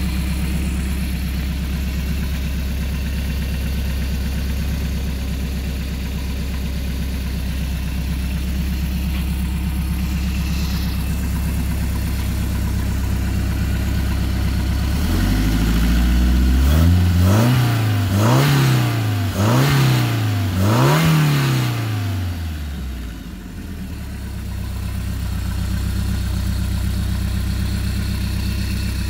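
Freshly rebuilt Mercruiser 170 3.7-litre inline-four marine engine running through a makeshift wooden muffler box. It idles steadily, then about halfway through it is revved up and down four times in quick succession before settling back to idle.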